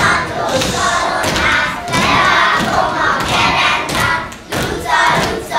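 A group of children singing or chanting together in unison, with repeated thumps mixed in.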